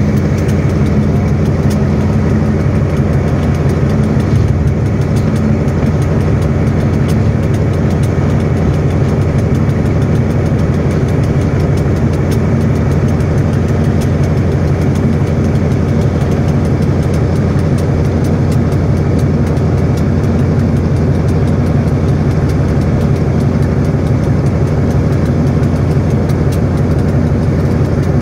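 Diesel locomotive engine running steadily in a high throttle notch, a deep, even drone that holds without change.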